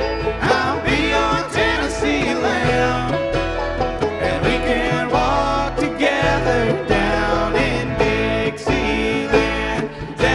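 Live bluegrass band playing an instrumental passage: five-string banjo, mandolin, fiddle, acoustic guitar and upright bass.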